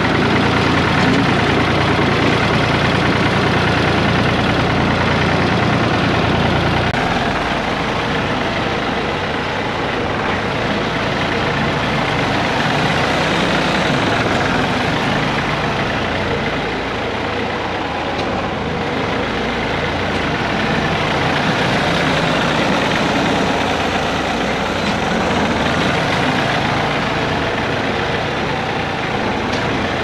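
Tractor engine running. For the first seven seconds it is heard close up from the driver's seat with a strong steady low hum. After an abrupt change it is heard from further off as the tractor drives across the yard toward the listener.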